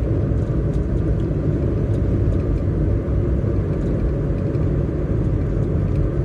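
Steady road and engine noise of a moving car, heard from inside the cabin: a low, even rumble.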